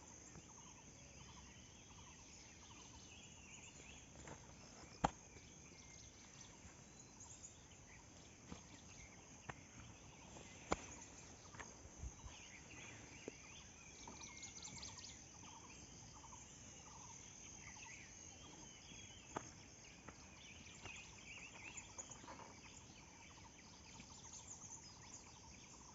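Faint poultry calls coming in scattered, chattering runs over a steady high insect drone, with a few sharp knocks.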